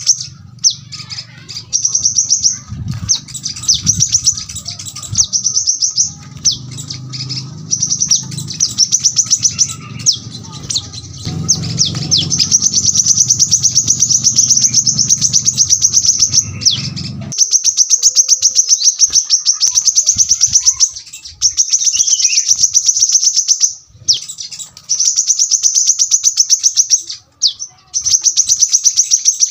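Brown-throated sunbird (kolibri kelapa) singing in long runs of very rapid, high, sharp notes, each run lasting a few seconds with short breaks between. A low background rumble stops suddenly a little past halfway.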